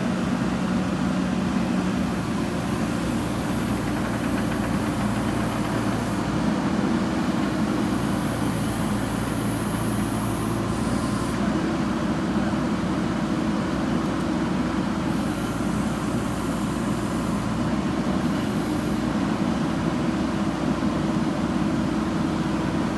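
Diesel engine of a JCB backhoe loader running steadily at work, its engine note shifting a few times.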